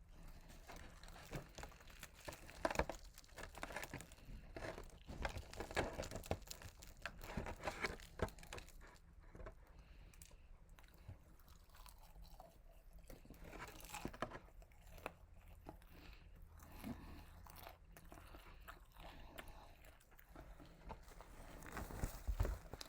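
A person biting into and chewing crispy fried chicken, with irregular crunches throughout.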